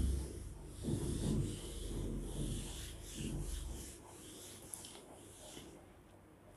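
A handheld whiteboard eraser wiped across a whiteboard in repeated dry rubbing strokes, stopping after about five and a half seconds.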